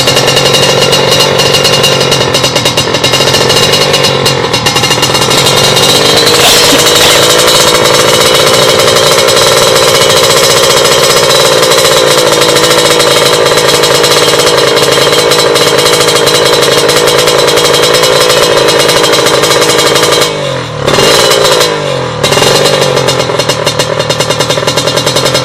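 Tuned Kawasaki Ninja 150 two-stroke engine, bored up to 155cc, held at high revs with a raspy, steady note. Near the end the throttle is twice closed and reopened, the pitch dropping and climbing back.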